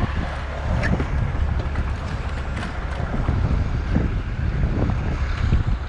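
Wind buffeting an action camera's microphone, a steady low rumbling flutter, with a few light knocks and clicks of gear handling.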